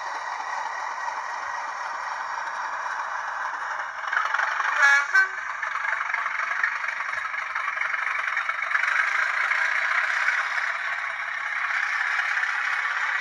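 Bachmann Class 37 model locomotive's factory DCC sound decoder playing the diesel engine sound through its small onboard speaker as it runs, with its wheels rattling along the track. A brief, louder pitched sound cuts in about four to five seconds in.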